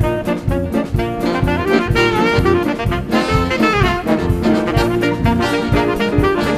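Live band playing up-tempo jazz: saxophone and brass carry the tune over a steady drum-kit beat and bass, with horn lines sliding down in pitch around the middle.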